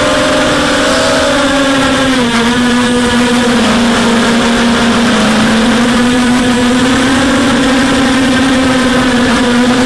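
Racing quadcopter's four 2204 2300kv brushless motors spinning 5045 props on a 4S battery: a steady, loud buzzing whine. Its pitch dips slightly about two seconds in, then holds level.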